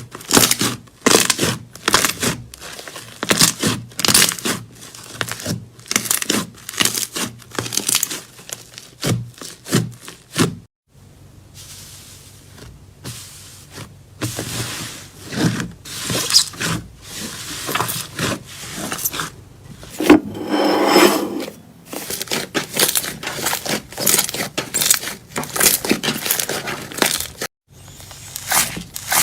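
Slime being squeezed, stretched and poked, giving dense runs of sharp crackles and clicks. There is a fuller squishing sound for a couple of seconds about two-thirds of the way through. The sound breaks off twice, briefly.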